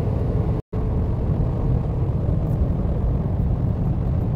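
Steady low road and engine rumble inside an SUV's cabin cruising at highway speed. The sound cuts out completely for a split second about two-thirds of a second in.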